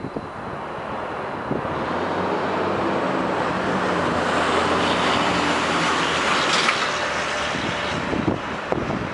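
A FedEx walk-in delivery truck driving past on asphalt, engine and tyre noise. It grows louder over the first few seconds, is loudest about six and a half seconds in, then begins to fade as it pulls away.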